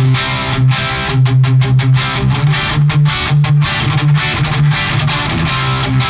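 Electric guitar played through the KOR Oracle overdrive pedal on its crunch side, with the voice control open and lots of gain. It gives a heavily saturated, bright tone likened to a Marshall amp cranked flat out. Fast, rhythmic picked chords ring over a held low note.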